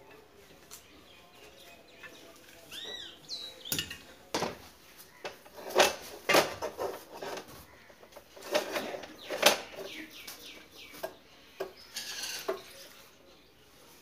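Knocks, clicks and metallic clatter as a flat-screen TV with a metal mounting bracket is handled and hooked onto a metal wall plate. The sound comes in irregular bursts, with the loudest knocks in the middle.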